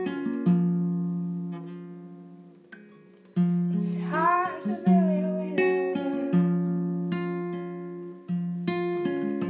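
Acoustic guitar strumming chords, with a singer coming in on a short sung phrase about four seconds in.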